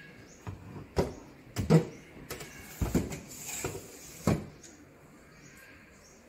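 Stainless steel drying trays being slid along the racks of a drying cabinet: a series of metal clanks and knocks, with a brief scrape in the middle as a tray slides.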